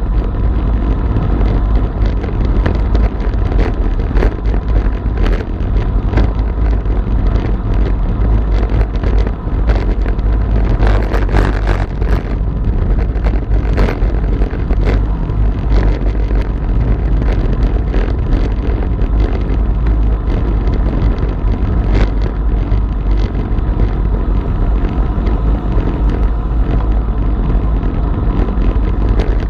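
Wind buffeting a bicycle-mounted action camera's microphone at road-riding speed of about 35–40 km/h, a steady heavy rumble, with the bike's tyres running on the road and scattered short clicks and knocks.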